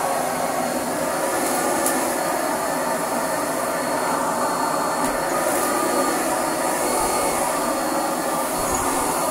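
Hitachi CV50-D vacuum cleaner running steadily with its brush roll switched on, motor and spinning brush roll together in one even whir. The brush roll runs smoothly, without knocking or rattling.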